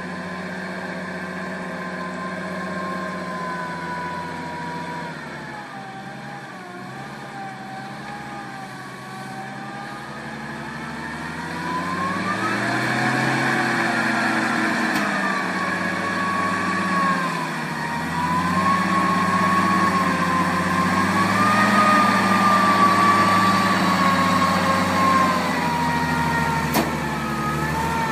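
Off-road truck on big low-pressure tyres, its engine working under load through mud and water, the revs rising and falling. It grows louder about halfway through as it nears.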